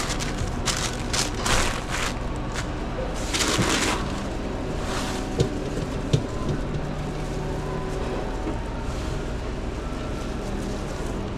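Sandwich-making handling sounds behind a fast-food counter: several short bursts of rustling and crinkling, then two sharp clicks about halfway through, over a steady low hum.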